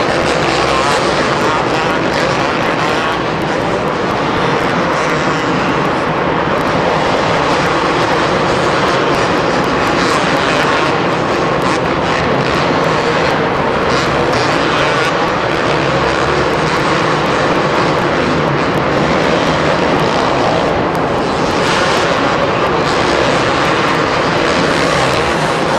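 Two-stroke racing dirt bike engines running hard at high revs, a continuous loud blare of several bikes at once.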